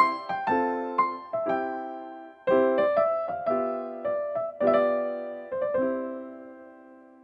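Background piano music: struck notes and chords that each ring and decay, in short phrases, the last chord fading out near the end.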